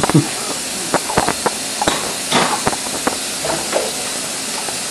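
Tap water running steadily into a kitchen sink while dishes and cups are washed, clinking and knocking against each other at irregular moments.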